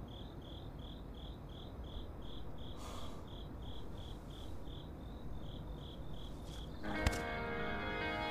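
Crickets chirping steadily, about three chirps a second, over a faint hiss. About seven seconds in, guitar music comes in.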